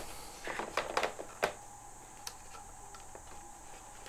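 Light clicks and rustles of fingers handling zip ties and wiring around a gyro board inside a foam model airplane fuselage: several in the first second and a half, one more a little after two seconds, then mostly quiet.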